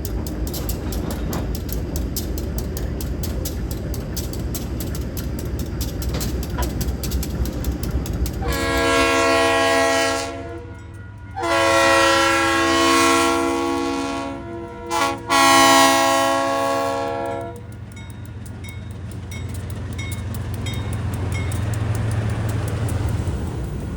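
Diesel locomotive horn sounding the grade-crossing signal, long, long, short, long, over the steady running sound of the train on the rails. The train runs on alone before the horn and again after it.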